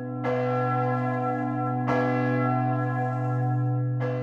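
Large church bell tolling, struck three times about two seconds apart. Each stroke rings on in many overtones over a deep, steady hum that carries through the strokes.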